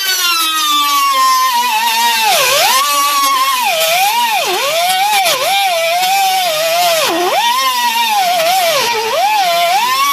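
Air-powered cutoff wheel whining at high speed while cutting through weld beads on car-body sheet steel. Its pitch dips again and again as the wheel bites into the welds and recovers between cuts.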